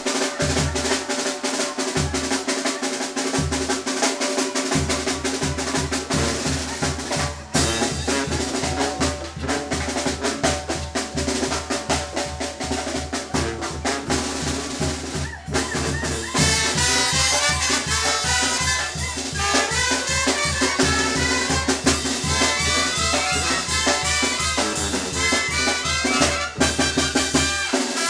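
Live dance band playing: a drum kit beats out a steady rhythm, and trumpets and the rest of the band come in fuller and louder about halfway through.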